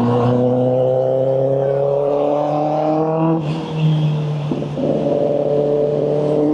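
Motorcycle engine pulling, its pitch rising slowly for about three seconds. It then drops abruptly, dips briefly again about a second later, and runs steadily.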